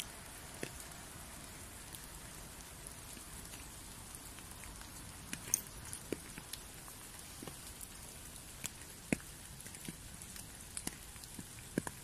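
Light rain: a steady soft hiss with scattered, irregular drops ticking.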